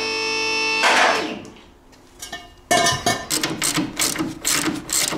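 Background music: a held chord for about the first second, then after a short lull a quick run of sharp clicks.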